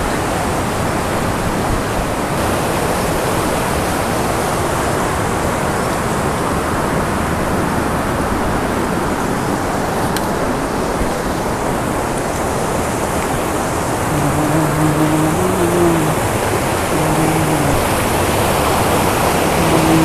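Mountain stream rushing over rocks and a small cascade: a steady, full rush of white water.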